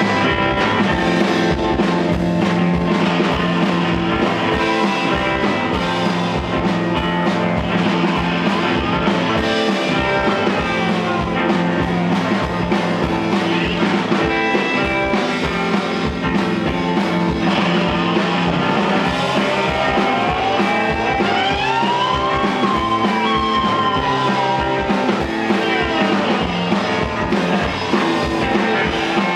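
Live rock band playing a song with drums and electric guitars at a steady, loud level. A sliding, bending lead line rises and falls through the middle-to-late part.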